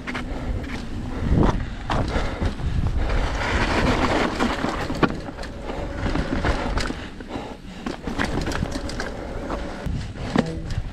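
Hardtail mountain bike rolling fast down a dirt singletrack: knobby Maxxis Assegai tyres rumbling over dirt and rocks, with the frame and drivetrain rattling and clicking over the bumps.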